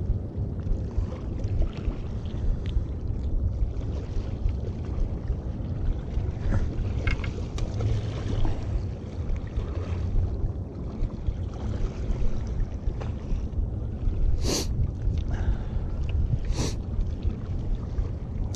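Wind buffeting the microphone: a steady low rumble that rises and falls. Two short sharp clicks come near the end, a couple of seconds apart.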